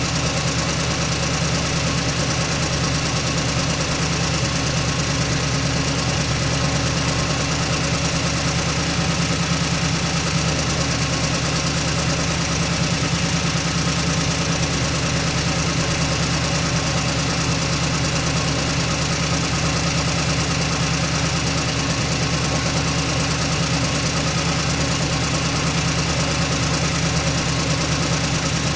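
A 1927 truck's engine running steadily at an even speed, with no revving.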